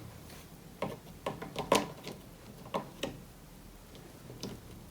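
Light, irregular clicks and taps from a stick of RAM being handled and lined up with a motherboard memory slot, about seven in all.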